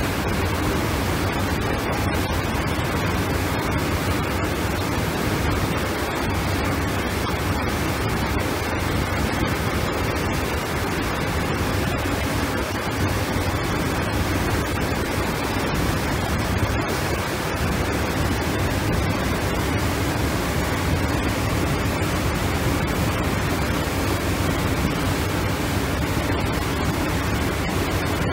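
Steady rushing noise of wind and water aboard a moving yacht, even and unbroken, with a low hum underneath.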